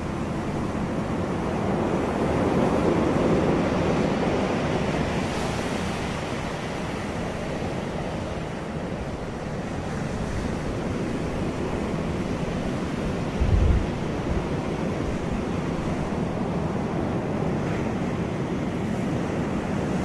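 Ocean waves breaking and washing onto a pebble beach as a steady rushing surf, swelling louder a few seconds in. About two-thirds of the way through there is one short low thump.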